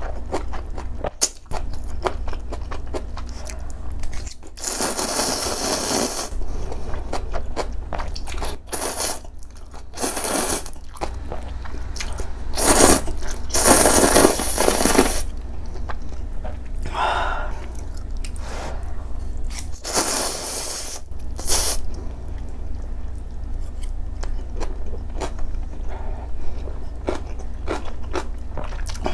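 A person eating ramen noodles up close: several long, loud slurps of noodles, the loudest about halfway through, with chewing in between and chopsticks clicking and scraping on a metal plate.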